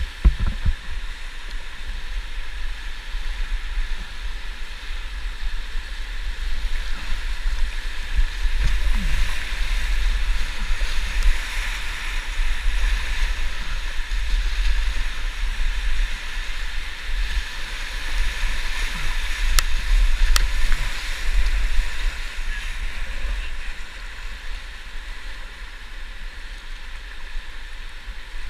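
River whitewater rapids rushing steadily, louder through the middle as the canoe runs close to the standing waves, over a low rumble. Two sharp clicks about twenty seconds in.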